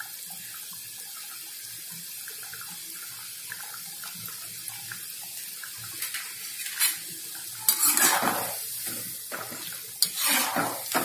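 Squares of sweet mathri dough deep-frying in hot oil in an aluminium kadhai, a steady sizzle and bubbling. There are a few louder bursts in the second half, the last as a metal slotted frying spoon goes into the pan.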